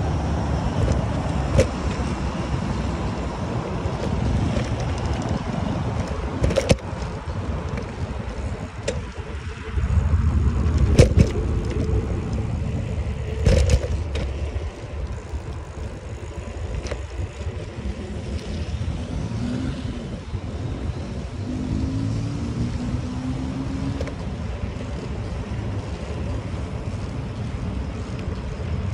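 Wind rumbling on the microphone and the bicycle's rolling noise as it is ridden along, broken by a few sharp knocks.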